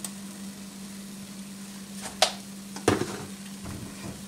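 A few brief kitchen taps and knocks, as a utensil or pepper container is handled over a pot of mashed potatoes, about two and three seconds in, over a steady low hum.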